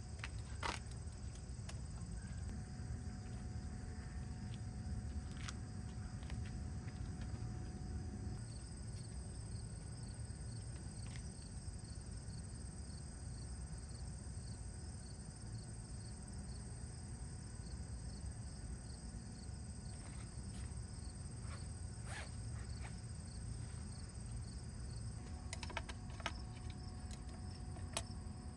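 Outdoor ambience: insects chirring steadily in high thin tones over a low steady rumble, with a few scattered light clicks and knocks from handling a wooden pochade box and tripod easel, more of them near the end.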